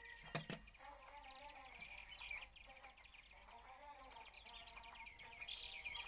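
Yellow-eyed babblers calling: rapid runs of short, high, falling chirps, thickest about two seconds in and again near the end, with a softer wavering lower note early on. Two sharp clicks come about half a second in.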